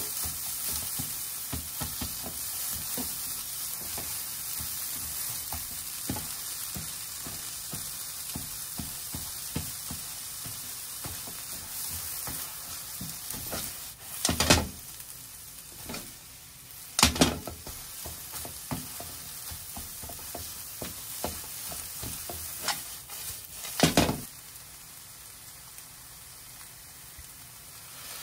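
Shredded carrot and egg sizzling in a nonstick frying pan as they are stir-fried, with frequent small scrapes and clicks of the spatula. There are three louder clatters of the spatula and pan, the first about halfway through as the food is tossed.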